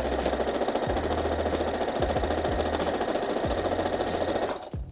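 Brother electric sewing machine running steadily at speed as it stitches through fabric, then stopping near the end.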